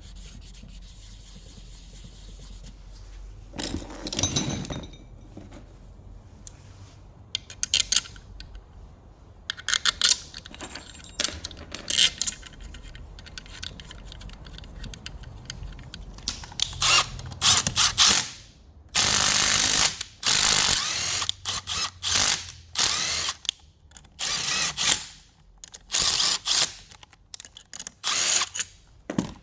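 Tool work on an alternator: scattered clicks and knocks, then from about halfway on repeated harsh bursts of ratcheting and short runs of a power tool, each a second or two long.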